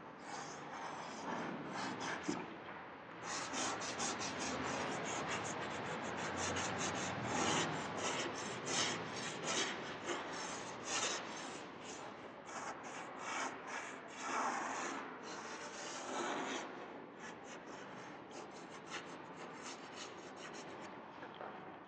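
Chalk rubbing and scratching on a chalkboard in quick back-and-forth strokes as a drawing is shaded in and outlined. The strokes come thick and fast for most of the stretch, then grow lighter and sparser over the last few seconds.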